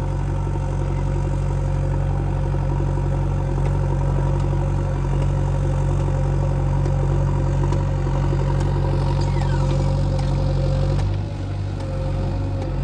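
Heavy diesel engine of a backhoe or truck running steadily, with a brief drop in its note about eleven seconds in before it picks up again.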